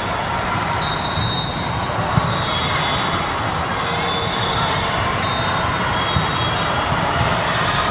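Indoor volleyball match in a gym: sneakers squeak briefly on the court floor several times, and a single sharp hit of the ball lands about two seconds in, over steady crowd noise.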